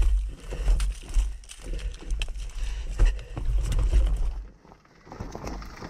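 Honda enduro dirt bike riding down a loose rocky trail: repeated knocks and crunches of tyres over stones on top of a steady low rumble. The rumble drops out briefly about four and a half seconds in.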